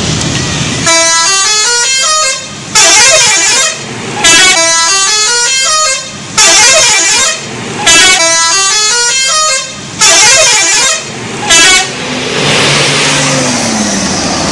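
Indonesian telolet bus horn, a multi-tone musical air horn, playing its stepping jingle in about seven loud bursts, long and short by turns, repeating the tune. The horn stops about three seconds before the end.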